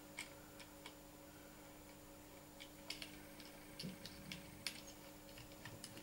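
Faint, scattered small clicks and taps of metal lock hardware (the indicator rose and its fixing screws) being fitted by hand against a wooden door, over a faint steady hum.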